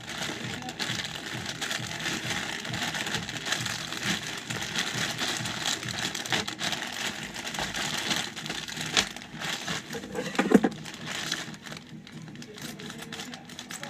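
Plastic candy packet crinkling and crackling as it is handled and opened, with a brief pitched sound about ten seconds in, then quieter rustling.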